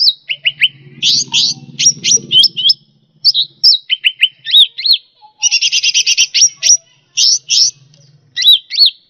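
Cucak rante songbird singing a busy, rapid song of sharp chirps and short curved whistled notes, with a fast rattling trill in the middle, recorded as a masteran training track for caged birds.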